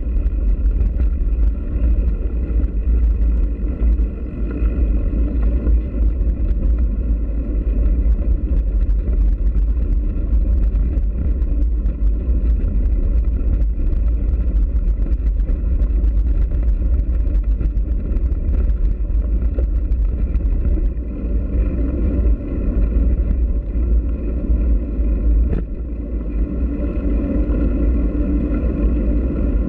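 Wind buffeting the microphone of a camera on a bicycle riding a gravel and dirt track, over the crunch and rattle of the tyres on loose gravel. A faint steady whine runs along underneath.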